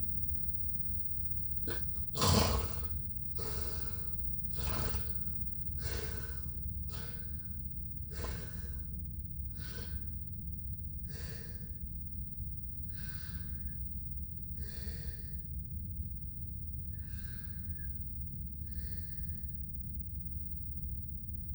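A sleeper's noisy breathing: a loud gasp about two seconds in, then a run of breaths every second or so that gradually slow and fade. A steady low hum runs underneath.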